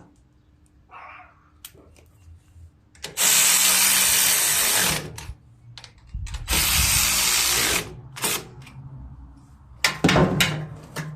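Power drill-driver run in two bursts, one of about two seconds and one of about a second and a half, tightening the bolts that hold a new carburetor on a Briggs & Stratton mower engine. A few short clatters of handling follow near the end.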